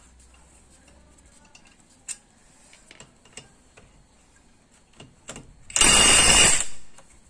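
A few light knocks and clicks as the socket goes onto a wheel lug nut. About six seconds in comes a loud burst of roughly a second: a cordless impact wrench hammering the lug nut loose, turning it counterclockwise.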